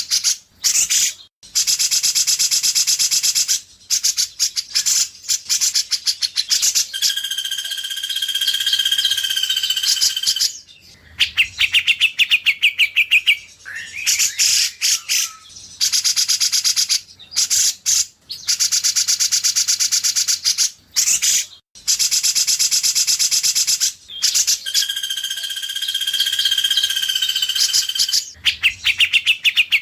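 White-rumped shama song, edited into a continuous track: fast, high chattering phrases broken by short pauses, with long steady whistled notes twice. The sequence of phrases repeats.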